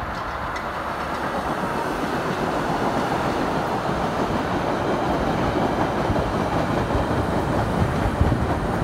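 CTA 'L' rapid-transit train of 2600-series cars pulling into the station, the rumble of its wheels on the rails growing louder as it draws alongside the platform.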